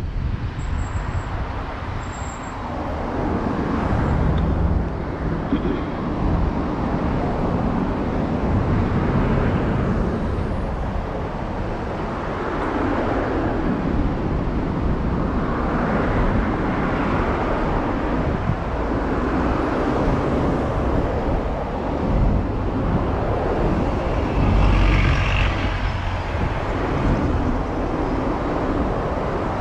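Road traffic: cars passing one after another, each swelling and fading over a few seconds.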